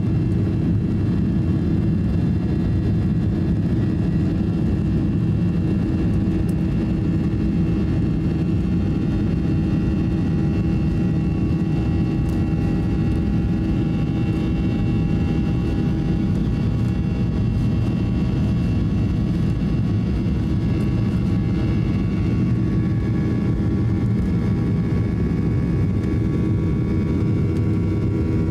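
Inside the cabin of a Boeing 737-800, its CFM56 turbofan engines running at takeoff thrust through the takeoff run and lift-off: a steady, loud low rumble with several steady whining fan tones on top.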